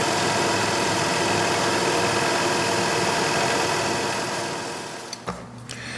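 Vertical milling machine running, its end mill side-cutting the edge of a white King StarBoard HDPE plastic sheet: a steady machine hum of several tones with the hiss of the cut. It fades out over the last second and a half, with a light click near the end.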